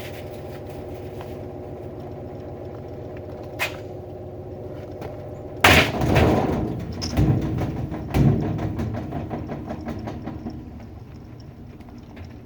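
A 2018 GE washing machine spinning up with a steady motor hum. A click comes a few seconds in, then about six seconds in a loud crash with clattering, two more heavy knocks, and the noise fades away.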